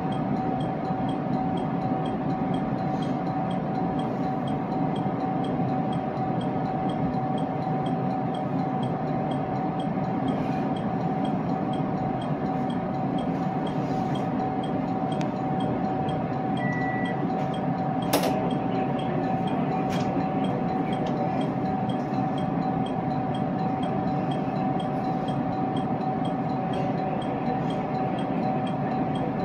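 Steady running hum heard inside a commuter electric train crawling at very low speed: a low rumble with one steady tone held over it. A single sharp click about eighteen seconds in.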